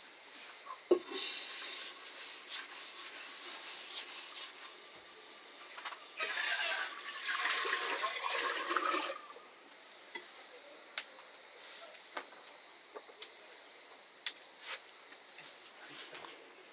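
Fiddlehead fern stalks being snapped by hand, heard as scattered sharp snaps, the loudest about a second in. A longer rustle of the leafy fern bundle being handled runs from about six to nine seconds in.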